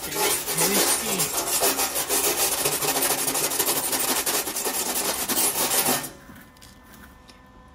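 Hand wire brush scrubbing a fresh weld bead on a steel bumper, rapid back-and-forth scraping strokes that stop about six seconds in.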